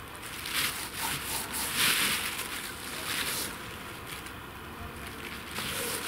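Hands rubbing coarse salt into a raw asp's skin and scales, a gritty scraping in a few separate strokes, with the plastic bag under the fish rustling.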